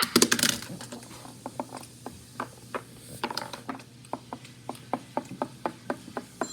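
A quick, irregular series of light clicks and taps, several a second, over a faint steady hum.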